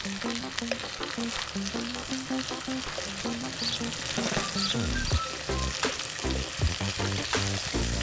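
Food sizzling as it fries, with background music: a melody of short stepped notes, joined by a heavier bass beat about halfway through.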